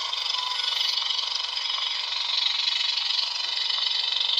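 Lightsaber sound-font hum from a Proffie-board saber hilt's small speaker, a steady buzzing hum.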